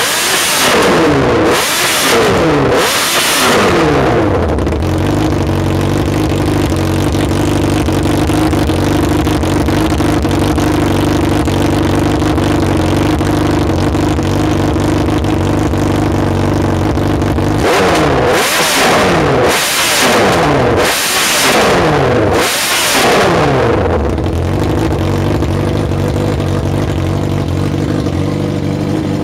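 2005 Suzuki GSX-R750 inline-four engine running on a stand through a short open exhaust pipe. It is blipped up and down several times at the start, settles to a steady idle, is revved again in a run of quick blips in the middle, then idles again.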